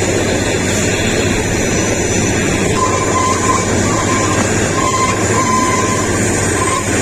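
Kalka–Shimla narrow-gauge toy train running: a steady rumble and rattle of wheels and carriage, with a thin high tone that comes and goes from about three seconds in.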